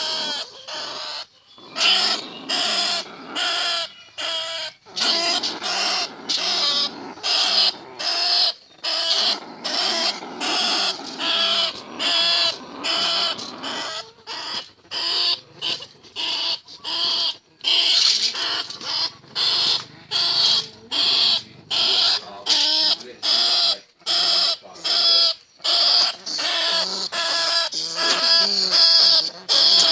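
Bandicoot rats and field rats squeaking, short pitched calls one after another about one or two a second with brief gaps between them.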